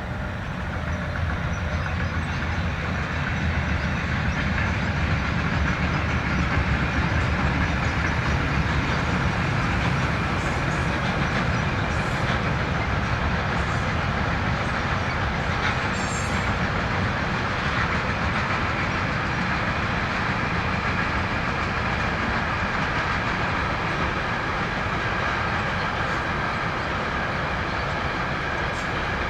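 Train passing by on the track: a long, steady run of wheels on rails with occasional clicks, building over the first few seconds and then holding.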